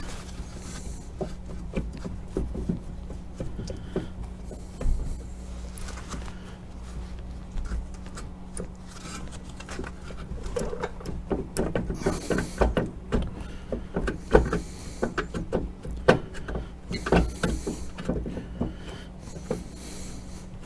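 Hand tools and a 2007 Acura brake caliper being worked loose and lifted off the rotor: scattered metallic clicks, knocks and rubbing, coming thicker in the second half.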